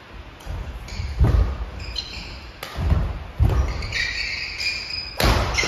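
Badminton doubles rally: rackets striking the shuttlecock with sharp cracks roughly a second apart, with shoes thudding and squeaking on a wooden gym floor. The sounds echo in a large hall.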